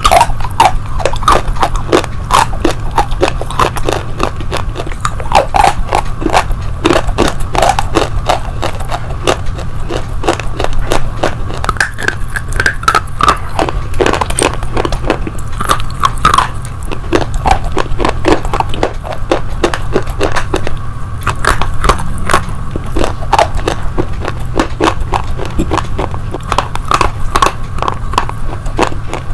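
Slate pieces and slate sticks being bitten and crunched in the mouth close to a clip-on mic: a dense, continuous run of sharp, crisp cracks and crackles.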